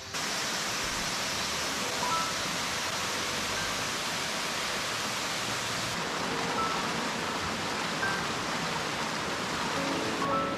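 Mountain stream rushing over rocks in small cascades: a steady hiss of running water that cuts in suddenly right at the start.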